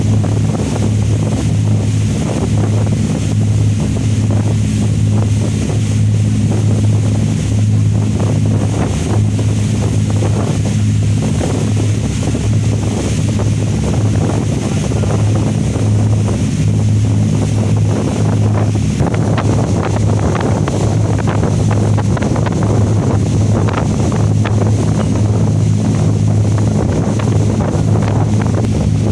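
Boat engine running at a steady drone, with wind buffeting the microphone and water rushing past.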